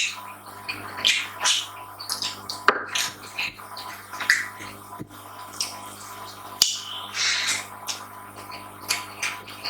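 Close-up chewing and wet mouth smacking, in irregular short bursts, with a few sharper clicks about a third and a half of the way through and again about two-thirds in.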